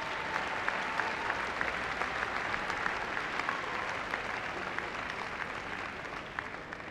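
Audience applauding in a large hall, many hands clapping together, the applause thinning and fading near the end with a few single claps.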